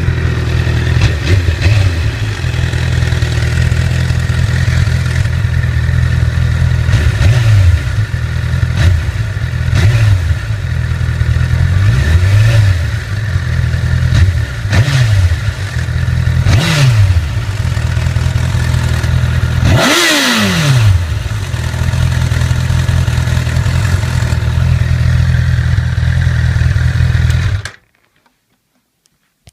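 2008 Honda CBR1000RR inline-four engine idling with a rattle, the throttle blipped about half a dozen times, with the biggest rev about two-thirds of the way through; the engine cuts off near the end. The rattle comes from a faulty cam chain tensioner, and replacing the tensioner cured it.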